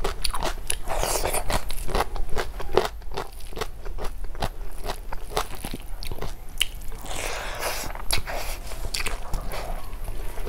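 A person eating snail curry with rice and raw salad, close to the microphone: chewing and crunching, with many sharp clicks and two longer noisy stretches, about a second in and around seven seconds in.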